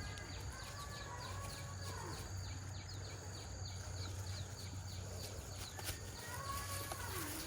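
Animal calls over a steady low hum: a rapid run of short, high chirps, about four a second, for the first few seconds, and a few rising-then-falling calls near the start and again near the end.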